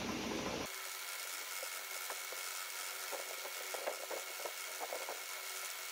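Metal lathe running while a twist drill in the tailstock chuck bores into the end of the spinning metal workpiece: a steady tone over a hiss, with scattered short crackles as the drill cuts.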